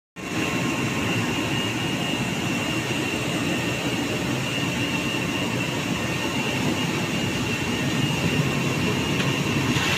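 Bubble-type fruit washing machine running: water churning and frothing in its steel tank over a steady machine drone, with a thin high whine.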